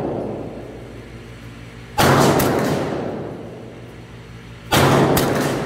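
Two shots from a CBC 7022 semi-automatic .22 LR rifle, about two and a half seconds apart, each ringing out in a long echo off the walls of an indoor range, over a steady low hum.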